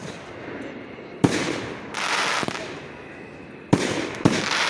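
Fireworks going off: a sharp bang about a second in and two more close together near the end, each followed by about a second of hissing.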